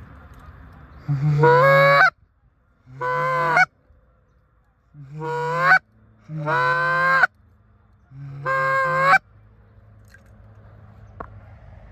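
Goose call blown by hand close by: five long honking notes, each starting low and breaking up into a higher note before cutting off sharply, spaced one to two seconds apart.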